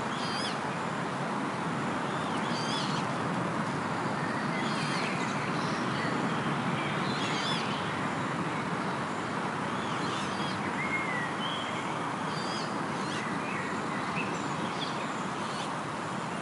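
Songbirds singing, one repeating a short phrase every two seconds or so, with an occasional whistled note from another bird, over a steady rushing background noise.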